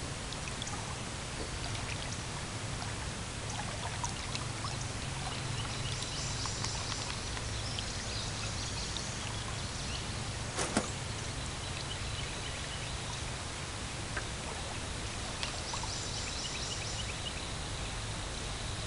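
Steady outdoor wind and water noise over a flooded backwater, with a low steady rumble beneath, faint high chirping twice, and a single sharp click about ten and a half seconds in.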